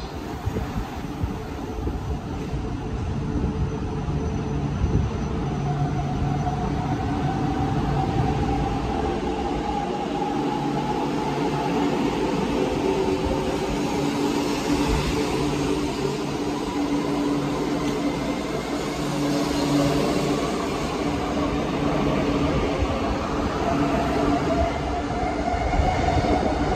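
E4 series double-decker Shinkansen, a 16-car train, pulling out from a standstill and gathering speed past the platform. There is a steady rolling rumble, and a motor whine that rises slowly in pitch as it accelerates.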